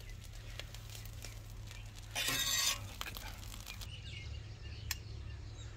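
A metal spatula scraping once, briefly, across a large flat steel griddle pan about two seconds in, over a steady low hum. A single sharp click near the end.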